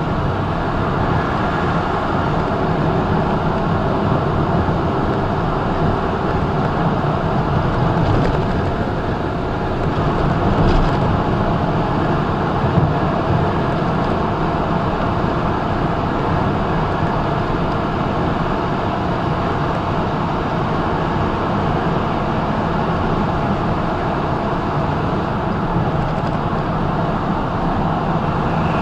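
Steady engine drone and tyre-on-road noise heard inside a semi-truck's cab cruising at highway speed, with a slight swell about ten seconds in and a single click shortly after.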